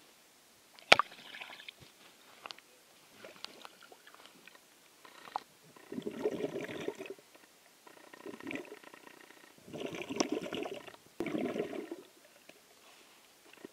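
A sharp knock about a second in, then water sloshing and gurgling around a camera held underwater, coming in several surges of about a second each.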